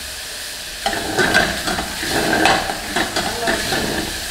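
Butter sizzling hard in a very hot steel pot, stirred with a metal spoon that scrapes and clinks against the pot, the sizzle picking up about a second in.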